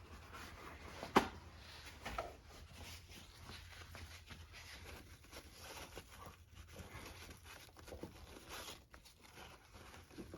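Small RC transmission parts being handled: faint scratching and rustling, with a sharp click about a second in and a softer one about a second later.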